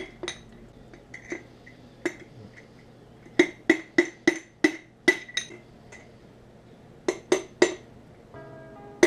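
Sharp metallic clinks in short runs of several quick hits, each ringing briefly, with pauses between the runs.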